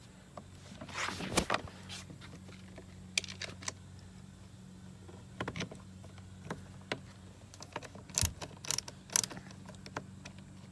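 Scattered clicks, taps and short scrapes of plastic side-mirror parts and a small metal hex key being handled and fitted together, with a cluster of sharper clicks near the end, over a steady low hum.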